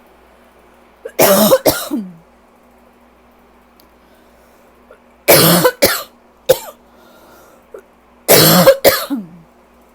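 A person coughing a rough allergy cough in three bouts of two or three coughs each, about a second, five seconds and eight seconds in.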